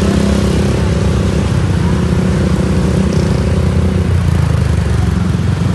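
Bus engine running steadily, with a low rumble and a drone of several steady tones that stops about four seconds in.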